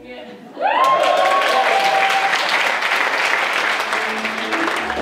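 A roomful of people breaking into applause and cheers about half a second in, a few long shouts riding over the clapping at first, then steady clapping.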